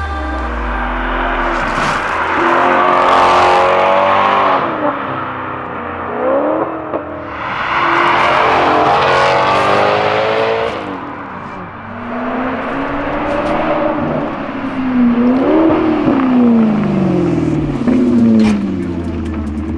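Maserati GranTurismo V8 engine accelerating and revving hard, its pitch climbing and dropping several times as it pulls through the gears.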